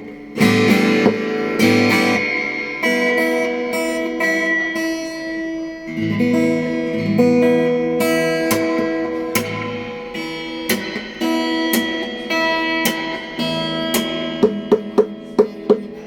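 Acoustic guitar played to try out a newly installed pickup: strummed chords and ringing picked notes, with a quick run of short muted strums near the end.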